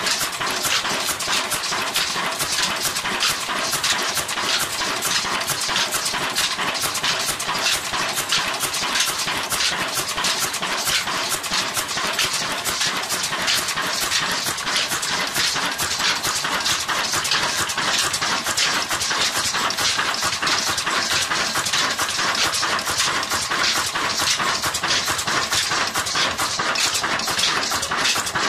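Old Ruston Hornsby-type stationary diesel engine running steadily, with a fast, even mechanical clatter.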